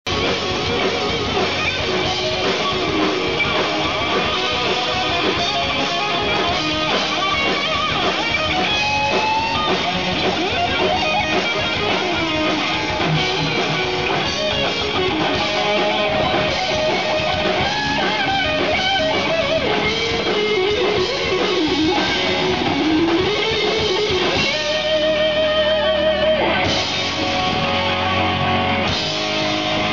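Live rock band playing amplified electric guitars and drums through a PA, with a guitar line of sliding, bending notes in the middle and a held chord near the end.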